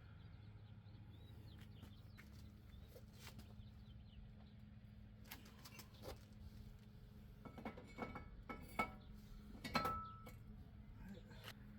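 Faint steady low hum with a few scattered light clicks and clinks, most of them bunched together about eight to ten seconds in.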